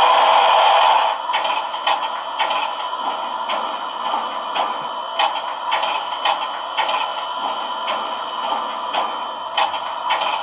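HO-scale Broadway Limited Milwaukee Road 4-8-4 #261 model's DCC sound decoder, heard through its small onboard speaker, playing a standing steam locomotive. A loud steam hiss drops away about a second in, leaving a softer hiss with clanking ticks about twice a second.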